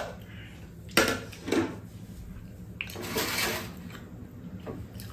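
Tableware being handled at a meal: spoons and chopsticks clinking against ceramic bowls and bowls knocking on a metal tray table. There are a few sharp knocks about a second in and a short ringing clink near the middle.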